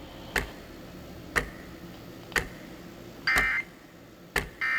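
Sharp ticks about once a second, and from about three seconds in two short warbling data bursts of an EAS end-of-message signal (the three 'NNNN' SAME bursts that close an alert). The second burst comes near the end.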